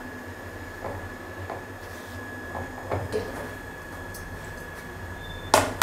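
Light clicks and taps of a plastic spice box and spoon being handled while spices are added to a bowl, with one sharper knock near the end, over a faint steady high whine.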